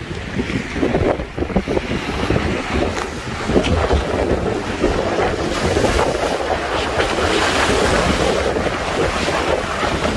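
Strong wind buffeting the microphone over the rush and splash of big waves around a small boat on a rough sea. The noise is dense and continuous, with a rumbling low end.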